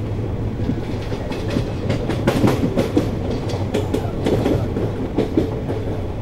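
Wheels of a freight train of LPG bogie tank wagons clattering over rail joints as the rake rolls past, an irregular string of sharp clicks that is thickest in the middle, over a steady low rumble.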